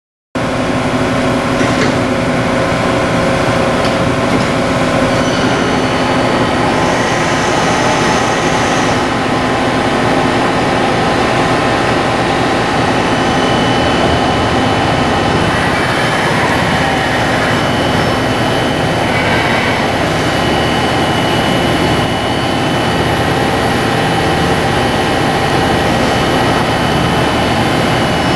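Motch 219D twin-spindle CNC vertical turret lathe running under power: a loud, steady machine hum with several steady whining tones. It starts suddenly just after the beginning, and a high whine joins a few seconds in.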